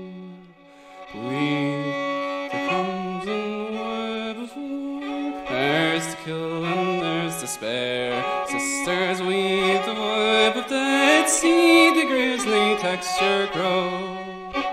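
Fiddle playing a bowed melody in an instrumental break, its notes changing every fraction of a second, often with two strings sounding together. A held note fades out at the very start, and the fiddle comes in about a second in.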